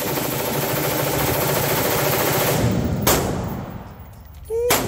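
Rapid gunfire from a firearm on a shooting range, a dense stream of shots for about three seconds, then a single sharp shot. Near the end comes a short rising tone and another loud burst.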